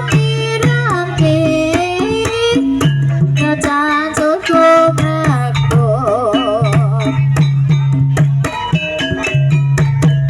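Javanese ebeg accompaniment music: a gamelan-style ensemble with frequent sharp drum strokes and a repeating low tone under a gliding, wavering vocal melody.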